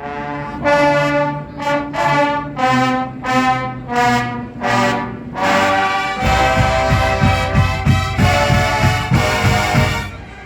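College marching band's brass playing a fanfare of short, separate chords, then from about six seconds in a held brass passage over a fast drum beat, which cuts off just before the end.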